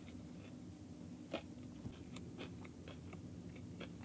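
A person chewing a bite of Nashville hot chicken sandwich with the mouth closed: soft crunches and wet mouth clicks, the clearest about a second and a half in, over a faint steady low hum.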